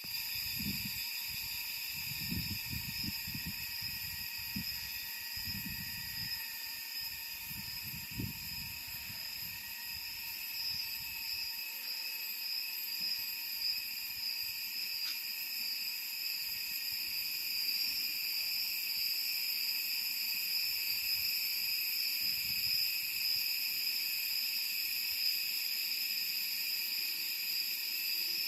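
Cicadas chirping in a continuous, steady high drone of several layered pitches. Some low rumbling in the first twelve seconds or so.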